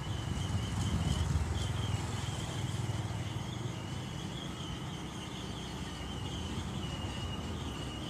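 Mitsubishi BD2G crawler bulldozer's diesel engine running with a steady low rumble that swells a little about a second in. A thin, wavering high-pitched whine sounds above it.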